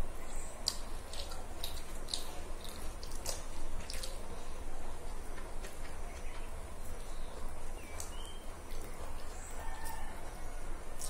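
Eating at a table: forks clicking and scraping on plates and noodles being slurped, in short sharp bursts that are densest in the first few seconds. A few short chirps from birds sound in the background in the second half.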